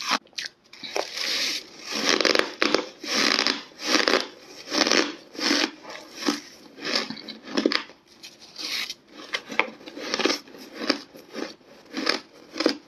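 Close-up chewing of hard, crunchy ice, big mouthfuls crushed between the teeth in a steady run of crunches, about one or two a second.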